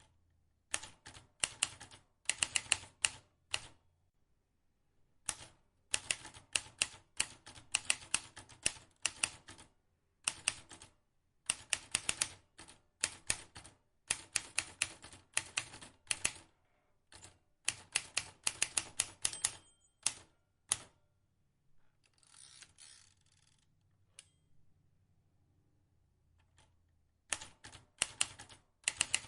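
Vintage manual typewriter being typed on: quick runs of sharp key clicks broken by short pauses, with a longer rasping stretch about three-quarters of the way through.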